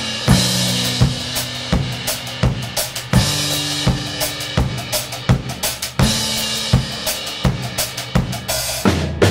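Acoustic drum kit played in a steady groove, drums and cymbals struck together, with a strong hit about every three-quarters of a second and lighter strokes in between.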